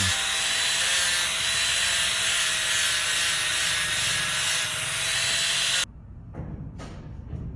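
A power tool running steadily with a loud hiss and a faint whine, cutting off abruptly about six seconds in, followed by a few light knocks.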